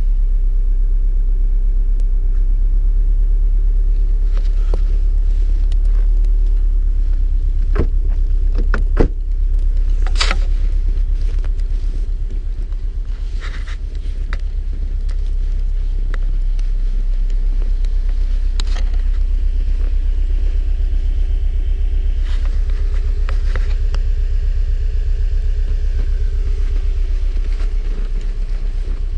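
2016 Subaru WRX STI's turbocharged 2.5-litre flat-four idling with a steady low rumble, with a few sharp knocks and clicks about eight to ten seconds in.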